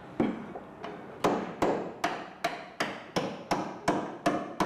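Small hammer tapping repeatedly on a fitting at the edge of a composite aircraft part: a steady run of sharp blows, about two or three a second, each ringing briefly.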